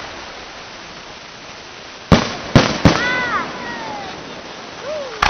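Aerial firework shells bursting: three sharp bangs in quick succession about two seconds in, followed by a few short falling tones.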